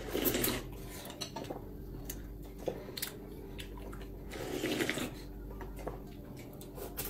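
Two long slurps of instant noodles and broth, just after the start and about four and a half seconds in, with light clicks of chopsticks against porcelain bowls in between.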